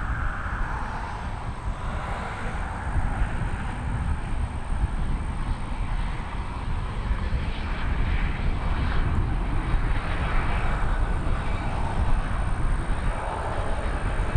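Jet noise from an Airbus A321-231's IAE V2500 turbofan engines during the landing: a steady rumbling hiss with no clear tone, growing somewhat louder in the second half.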